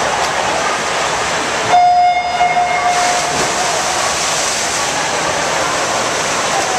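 Electronic starting beep of a swim race: one steady tone lasting about a second, sounding about two seconds in over the echoing hubbub of an indoor pool. After it comes a continuous wash of splashing as the swimmers dive in and sprint freestyle.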